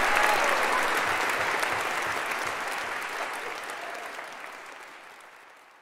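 Audience applause, a dense patter of clapping that fades away gradually until it is almost gone at the end.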